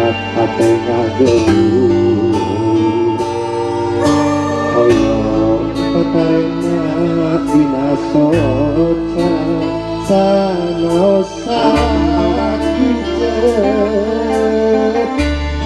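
A live Sundanese pop calung band: a male voice singing over electric guitar, keyboard and kendang hand drums, with sustained bass notes and a steady beat.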